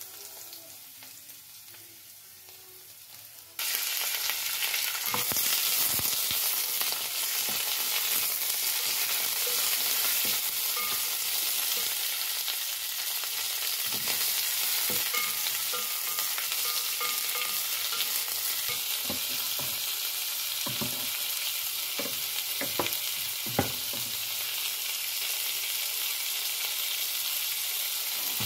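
Vegetables stir-frying in oil in a nonstick pan. A faint hiss jumps suddenly to a loud, steady sizzle about three and a half seconds in, as the food goes into the hot oil. A wooden spatula knocks and scrapes against the pan now and then, with one sharp knock near the end.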